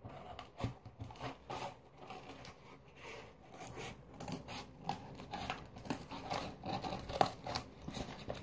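Scissors cutting through cardboard in short, irregular snips, with the cardboard rustling as it is handled.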